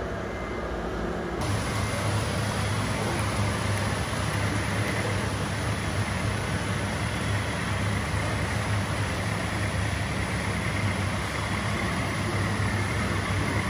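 Radio-controlled model truck running with a steady engine-like sound and a low hum. The sound changes abruptly about a second and a half in.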